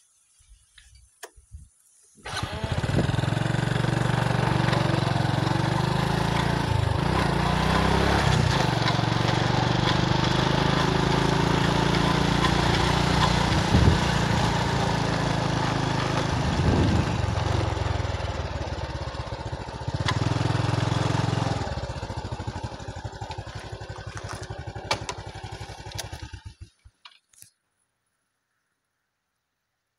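A small motorbike engine running, coming in abruptly about two seconds in with its pitch rising and falling a little, then slowing to separate putts and stopping shortly before the end.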